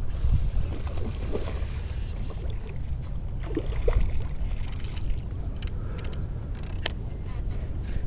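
Water splashing as a hooked largemouth bass is fought in to the bank, over a steady rumble of wind and handling on the microphone, with a sharp click about seven seconds in.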